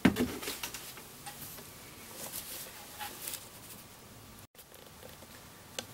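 A light knock, then faint scattered ticking and crackling.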